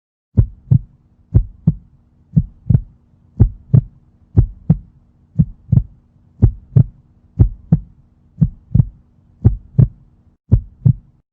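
Heartbeat sound effect: eleven paired lub-dub thumps, about one pair a second, over a faint steady hum.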